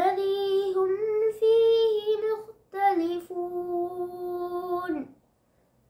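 A boy reciting the Quran aloud in a melodic chant, two long phrases of held notes with a short breath between them, falling silent about five seconds in.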